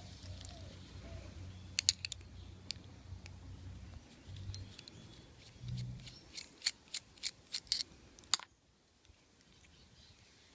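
Sharp metallic clicks and taps of a chrome-plated steel Lockwood padlock being handled and taken apart. There are a couple of clicks about two seconds in, then a quick run of about ten clicks, after which the sound drops away suddenly.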